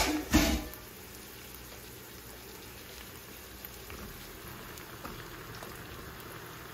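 Sliced onions and green chili frying in oil in a stainless steel pan, sizzling steadily. Two sharp knocks open the sound, the second about half a second after the first.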